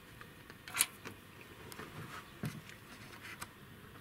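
A few short metallic clicks and knocks, the loudest about a second in, as a valve stem seal installer tool is handled and lifted off a freshly seated valve stem seal in an engine's cylinder head.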